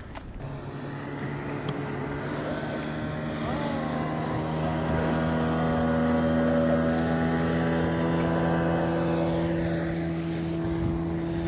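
Boat motor running nearby with a steady drone, growing louder toward the middle and easing off slightly near the end.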